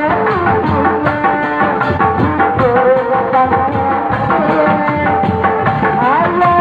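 Lively street-procession music: continuous drumming under a wavering lead melody that slides up in pitch near the end.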